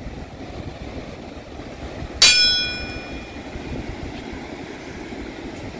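Steady wind and surf noise, broken about two seconds in by a single sharp, bell-like metallic ding that rings for about a second.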